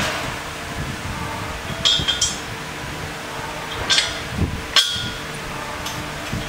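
A few sharp metal-on-metal clinks as steel snowplow mounting-kit parts knock together while they are handled: a pair about two seconds in, then two more a couple of seconds later.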